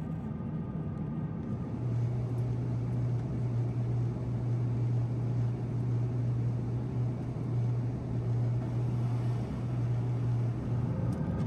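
Steady cabin noise of an Airbus A350-900 airliner in cruise: an even rushing hiss, with a constant low hum that comes in about two seconds in.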